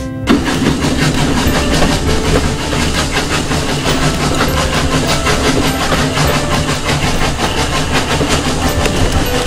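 Train sound effect: a locomotive running in a steady, even rhythm that cuts in suddenly just after the start.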